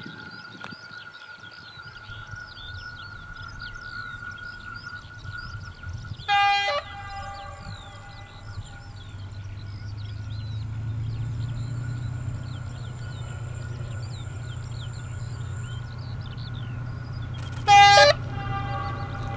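Ex-ÖBB class 2143 diesel locomotive approaching with its train: it sounds two short horn blasts, about a third of the way in and just before the end, while the low rumble of its diesel engine grows louder from about halfway through.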